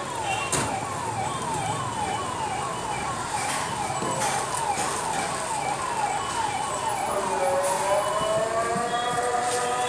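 Electronic siren sounding a fast yelp of falling sweeps, about three a second, which changes about seven seconds in to a slower rising wail. Scattered light clicks and knocks sound over it.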